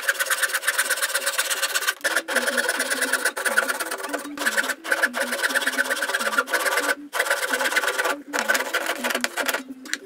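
A small machine running with a fast, even clatter, stopping briefly every second or two.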